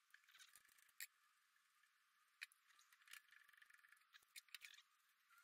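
Near silence, broken by scattered faint clicks and short scrapes of a metal workpiece being handled and turned on a lathe faceplate by gloved hands.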